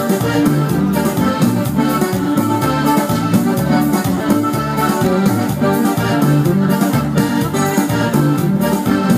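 Live instrumental break with no singing: an electronic keyboard plays an organ-like part over a steady beat, with an acoustic guitar.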